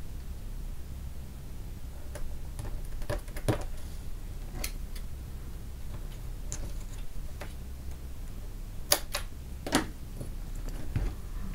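Scattered small clicks and taps of hands working cardstock and a roll of double-sided adhesive tape, with two sharper clicks close together late on.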